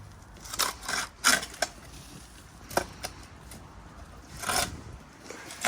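A handful of short, irregular scrapes and knocks, with one longer scrape about four and a half seconds in, from clearing debris off the concrete roof of a bunker.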